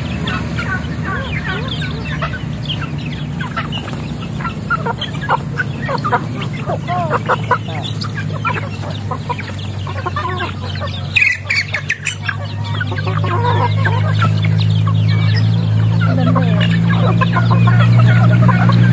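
A flock of young chickens clucking and calling continuously as they crowd around to be fed. A short clatter comes about eleven seconds in, and a low steady hum grows louder over the last few seconds.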